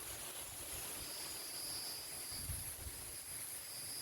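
Outdoor insect chorus: a steady high buzz with short higher chirps coming and going, over low wind rumble on the microphone.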